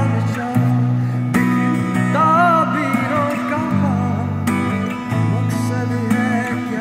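A man singing to his own strummed acoustic guitar, the sung line strongest in the middle.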